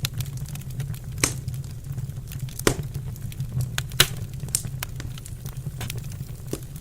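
Wood fire crackling in a fireplace: a constant patter of small crackles with several sharper pops, the loudest about four seconds in. A low steady rumble runs underneath.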